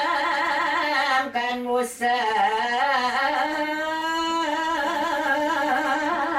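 A single voice singing long, ornamented held notes with a wide vibrato, with a short breath break early on.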